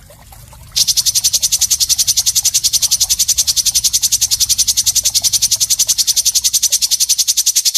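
A fast, evenly pulsed high-pitched trill from a songbird 'isian kasar' training recording, about ten pulses a second, starting just under a second in after a brief break, over a low hum that stops near the end.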